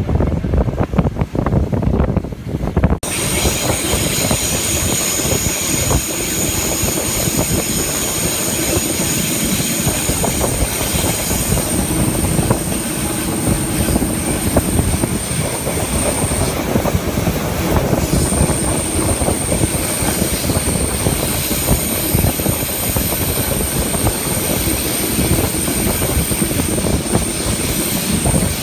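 Railway coach wheels squealing on a curve: a high, steady squeal sets in about three seconds in, breaks off briefly about two-thirds of the way through and returns. Under it the train's steady running rumble and clatter on the rails, with wind buffeting the microphone at the open window.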